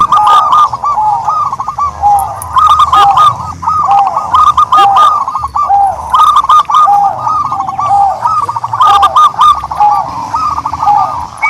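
Turtledoves calling: a steady stream of short, arched cooing notes repeating about once or twice a second, several series overlapping.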